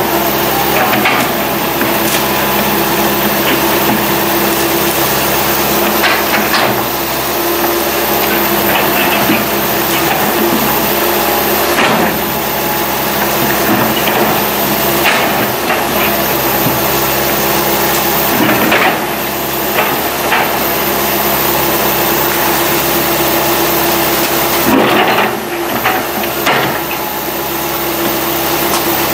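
Komatsu PC160 excavator's diesel engine running steadily under load, with scattered cracks and knocks of wood breaking as trees are pushed over.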